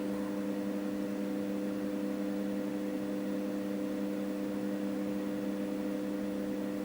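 Steady, unchanging drone in a Cessna 172 cockpit: the engine and propeller heard as a hum with a few fixed tones.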